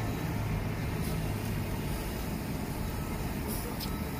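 Steady low hum of a car idling, heard from inside the cabin, with a few brief faint rustles about a second in and near the end.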